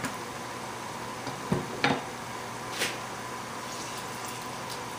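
Lime halves being squeezed in a handheld citrus press, with a soft knock and two short clicks in the middle, over a steady low room hum.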